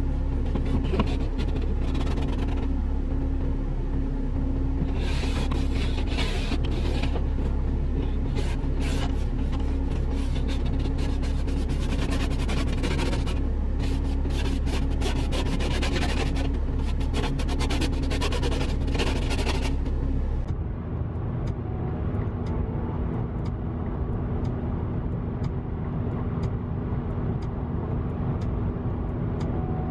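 Ice being scraped off a car windscreen in quick strokes, heard from inside the cabin over the steady hum of the idling car. About two-thirds of the way through, it gives way to the steady rumble of the car driving on a motorway.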